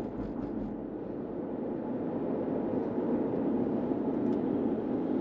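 Steady road and engine noise of a car driving along at speed, heard from inside the cabin.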